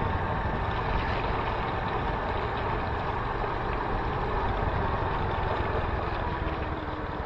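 Motorcycle engine running steadily while riding, easing off slightly near the end.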